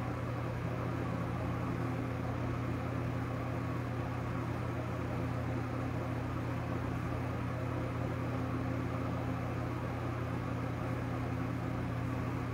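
Steady low hum with a faint hiss over it: the room's background noise, unchanging.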